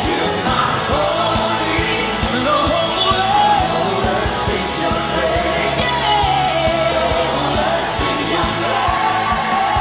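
Live worship band playing a contemporary praise song: a lead singer over acoustic and electric guitars, keyboard and a steady drum beat of about two hits a second.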